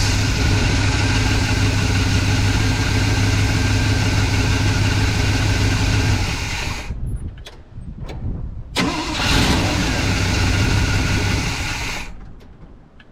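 Wrecker truck's V8 engine running steadily, then shutting off about six seconds in. A few clicks follow, then a second loud stretch of about three seconds that stops again. The spark on every cylinder is weak, which the owner puts down to a failing ignition module.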